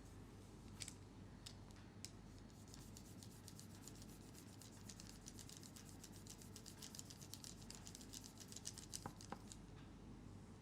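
Faint, crisp clicks close to the microphone: a few scattered ones at first, then a quick run of several a second lasting about seven seconds, with a couple of louder clicks near the end of the run.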